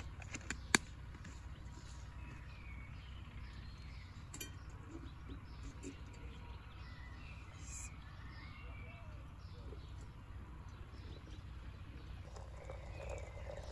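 Birds chirping here and there over a steady low outdoor hum, with a sharp click of a jar lid a little under a second in.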